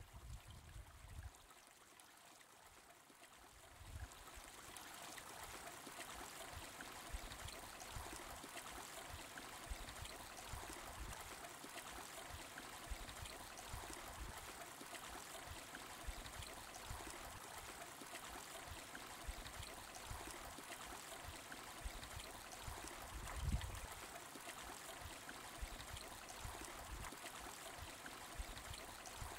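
Shallow snowmelt stream running steadily over rocks, coming up a few seconds in. A single low thump about two-thirds of the way through.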